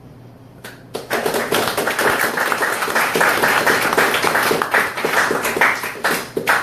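Audience applauding, starting about a second in and stopping near the end.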